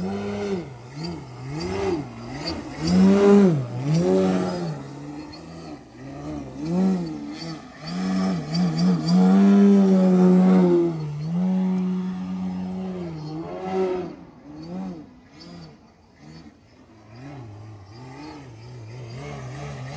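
Electric motor and large propeller of a radio-controlled aerobatic plane (Dualsky GA8000 outrunner turning a 28x12 Xoar prop) buzzing, its pitch rising and falling repeatedly with the throttle through the manoeuvres. It is loudest about 3 seconds in and again around 9 to 11 seconds, where a high-throttle note is held, and quieter from about 14 seconds on.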